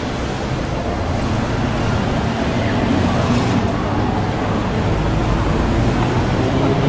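Road traffic running steadily, with a low engine hum that grows a little louder toward the end.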